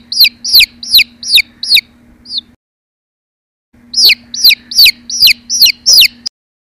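Baby chick peeping: two runs of about seven high peeps each, every peep falling in pitch, with a break of about a second between the runs. A faint steady hum sits under the peeps.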